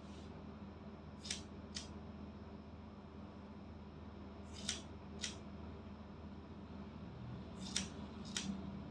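Hair-cutting scissors snipping through hair: six sharp snips in three pairs, each pair about half a second apart and the pairs about three seconds apart.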